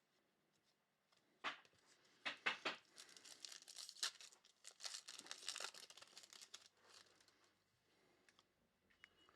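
A foil trading-card pack wrapper being torn open in a few quick rips, then crinkled and rustled for a few seconds.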